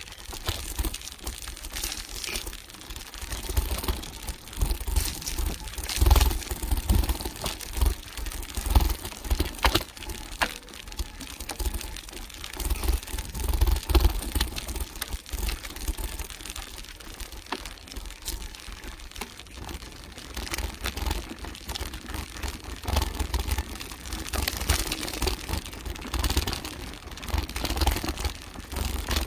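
Mountain bike ridden fast over a dirt and dry-leaf forest trail: tyres crackling over leaf litter and the bike clattering and rattling over bumps in a constant run of irregular knocks, over a low rumble that swells and fades.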